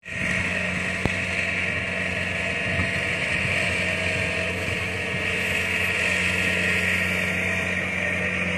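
Rice combine harvester running steadily as it cuts standing rice, its engine giving an even, unchanging hum.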